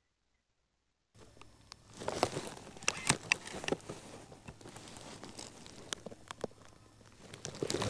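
Dry leaf litter and clothing rustling with a few sharp clicks as a prone shooter shifts behind the rifle, starting about a second in.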